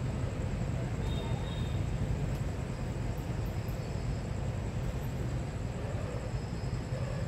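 Steady low rumble of idling motorbike engines and road traffic.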